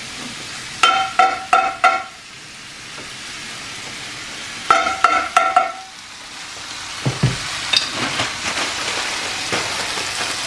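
Steaks sizzling and frying in a grill pan, with a steady crackle that grows louder over the last few seconds. Two quick runs of four sharp, ringing metal clicks come through, one about a second in and one about five seconds in.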